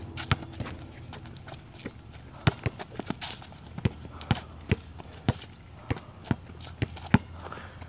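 A basketball being dribbled on an asphalt court, sharp bounces about twice a second, mixed with the players' footsteps.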